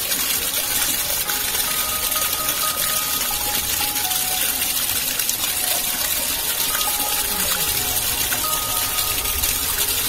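Water gushing and splashing in a strong, steady flow. A few faint held notes of soft music sound now and then underneath.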